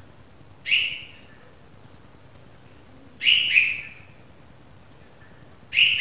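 Red-vented bulbul fledgling calling: three short calls, roughly every two and a half seconds, the middle one doubled.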